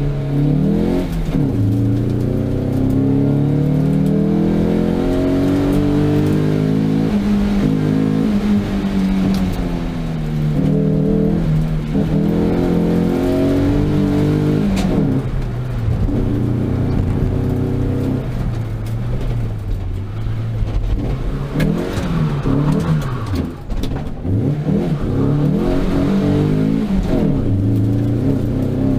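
Ford Sierra's engine heard from on board, revving up and dropping back again and again as the car accelerates, brakes and changes gear through a slalom course.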